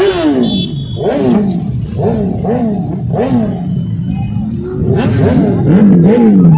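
Motorcycle engines revved in repeated short throttle blips, the pitch rising and falling roughly once or twice a second, with several bikes revving and idling together.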